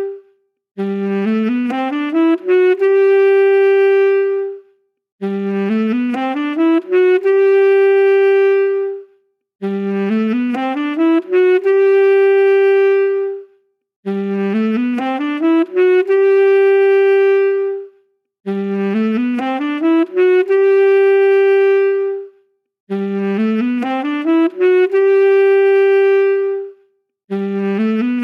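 Saxophone playing one short phrase over and over: a quick rising run of notes that lands on a long held note, then a brief gap, repeating about every four and a half seconds.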